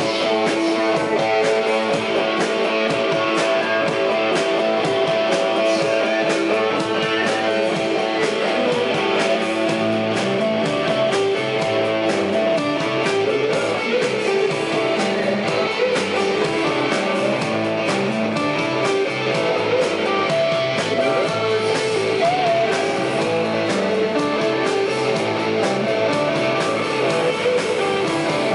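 Live rock band playing loud: electric guitar over a drum kit, steady throughout.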